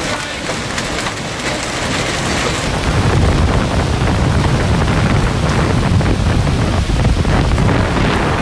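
Hailstorm: hailstones and heavy rain pelting a road. About three seconds in, the sound cuts to a louder, deeper rush of the storm.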